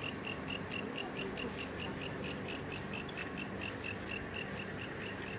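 Crickets chirping at night in a steady, even pulse of about five chirps a second.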